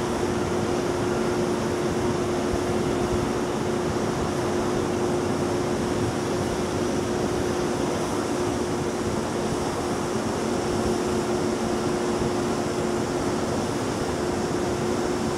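Steady mechanical hum of a ship's machinery, an even rushing noise with a constant low drone that holds unchanged throughout.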